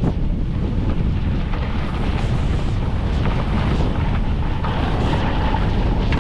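Wind buffeting the microphone of a snowboarder riding downhill, with a steady rushing hiss that is likely the board sliding and scraping over snow.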